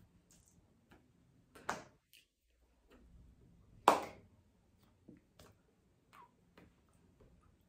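A signer's hands striking palm on palm: two sharp slaps about two seconds apart, the second louder, among fainter scattered clicks and taps.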